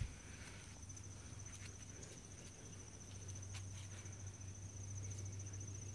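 Insects trilling steadily in a high, finely pulsed tone, over a faint low hum, with a few light ticks.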